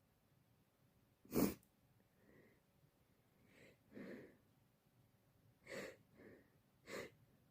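A woman's sneeze, short and loud, about a second in, followed by several quieter short bursts of sniffing and breathing through a stuffy nose. She is unsure whether allergies or a cold coming on is the cause.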